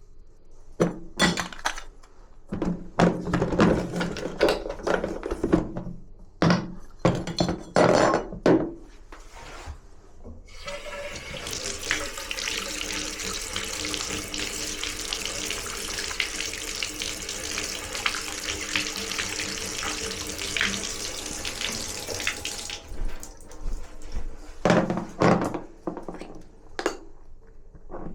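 Water running steadily from a tap for about twelve seconds, with sharp knocks and clattering of handled objects before and after it.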